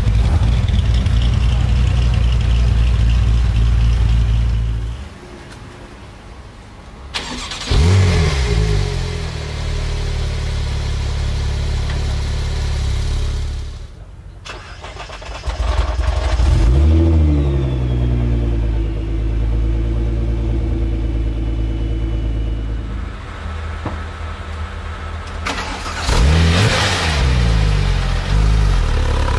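A string of supercar engines starting up, one after another with cuts between them: a Chevrolet Corvette C6 V8 running loud, then three start-ups, each a sharp flare of revs settling into a steady idle. Among them are a Nissan GT-R's twin-turbo V6 and, near the end, a Porsche 911 Turbo (997) flat-six.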